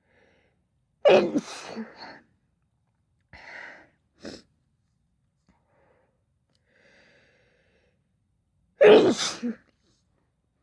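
A woman sneezing: two loud sneezes about eight seconds apart, with a few short, quieter sounds between them.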